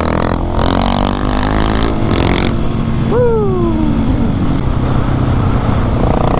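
Motorcycle engine running under riding wind noise, with a quick throttle blip about three seconds in whose pitch shoots up and then falls back over a second or so.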